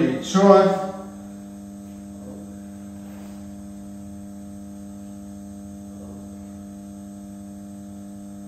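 A man's voice breaks off about a second in, leaving a steady electrical mains hum made of several constant tones.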